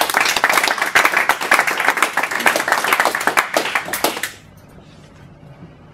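Audience applauding with a dense patter of many hands clapping, which stops fairly suddenly about four seconds in, leaving low room noise.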